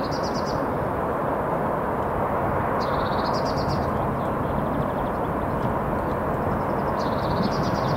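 Steady rumble of distant traffic, with a small songbird singing short trilling phrases three times, near the start, about three seconds in and near the end.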